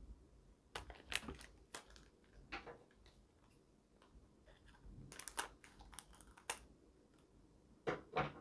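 Scattered light clicks and crinkles of small plastic candy-kit packaging being handled, with two louder knocks close together near the end.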